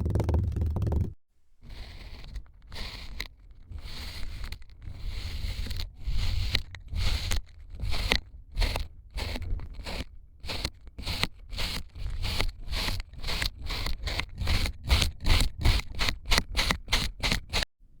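Kinetic sand being scraped in repeated strokes, slow at first and quickening to two or three a second near the end.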